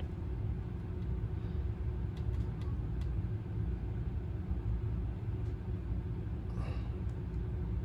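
Steady low background hum, with a few faint ticks.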